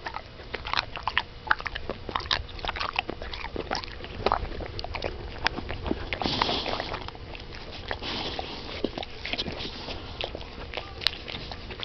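Boxer dog chewing and biting on something, a run of irregular short crunches and clicks, with a brief hiss-like noise about six seconds in.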